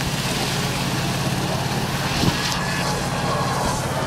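Vehicle engine running steadily with an even low drone, and a single sharp knock about two seconds in.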